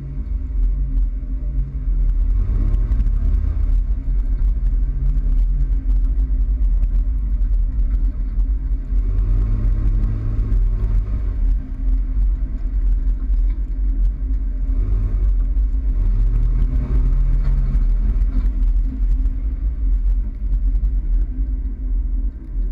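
Toyota Tacoma pickup driving, a steady low rumble of engine and road noise, with the engine note rising and falling three times as it speeds up and eases off.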